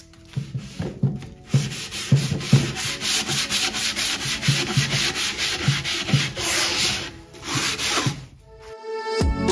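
A wet kitchen sponge with soap and water scrubbed back and forth over the finished wood of an end table, about two strokes a second. The scrubbing stops shortly before the end and background music comes in.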